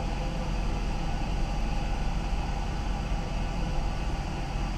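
1999 Jeep Cherokee engine idling steadily, a low even hum heard from the driver's seat.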